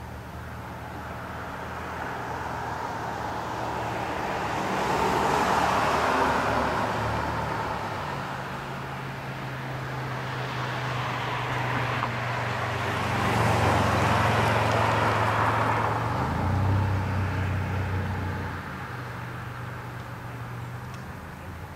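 Road traffic: two cars pass one after the other, each swelling in and fading away over a steady low engine hum.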